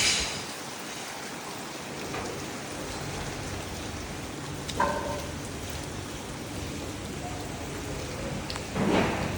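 Steady rain falling and pattering on surfaces, with a couple of brief louder noises, one about five seconds in and one near the end.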